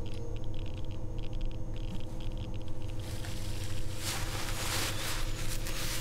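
Steady low hum throughout, with faint light clicks of wire paperclips being handled in the first few seconds and a hiss rising about four seconds in.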